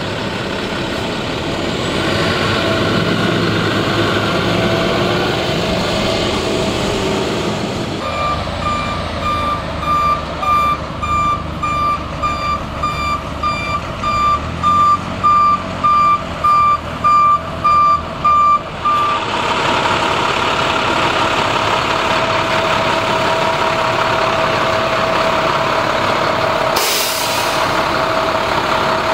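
Single-axle dump truck's diesel engine running as it maneuvers, with its backup alarm beeping steadily, about one and a half beeps a second, for roughly ten seconds in the middle. Near the end comes a short hiss of released air, typical of a truck's air brakes.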